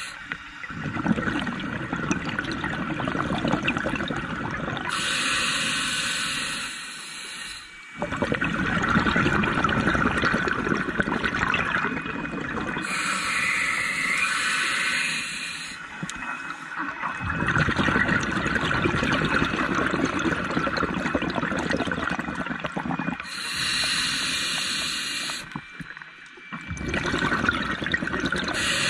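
A scuba diver breathing through a regulator: slow breaths, each a short hiss of inhaled air followed by a longer gurgling rush of exhaust bubbles, about three breaths in all.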